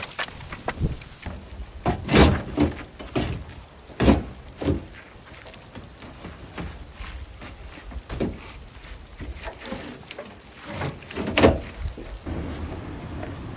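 Irregular knocks and thuds, about half a dozen, over a low rustling background.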